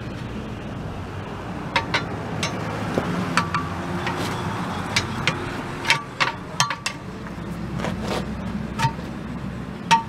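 Steel pry bars clinking and scraping against a steel wheel rim as a tire bead is levered off by hand: about a dozen sharp, irregular metallic clinks, each with a short ring, over a steady low rumble.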